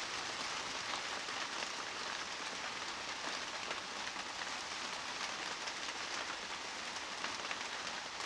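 Steady rain falling: an even hiss with many scattered drop ticks through it.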